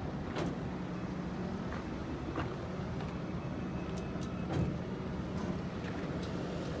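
Motor vehicle running with a steady low hum, with scattered small rattles and knocks and one slightly louder knock a little past the middle.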